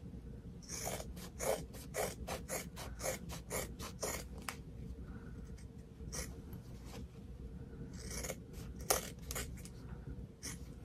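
Scissors cutting through the layered fabric and stitched seam edges of a sewn zipper bag: an irregular run of short, crisp snips with brief pauses between cuts.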